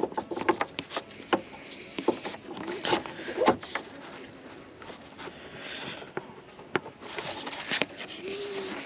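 Scattered plastic clicks and knocks with glove rubbing, as an LED headlight bulb is worked into its retaining bracket inside a car's headlight housing.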